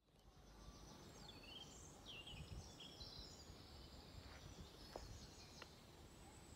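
Faint outdoor ambience: small birds chirping and twittering over a low background rumble.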